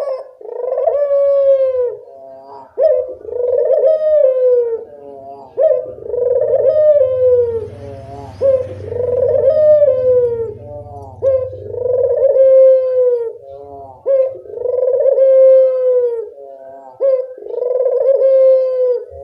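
A puter dove (Barbary dove) cooing over and over in full voice. Each phrase is a few short quick notes and then a long, slightly falling coo of about a second and a half, coming about every two seconds.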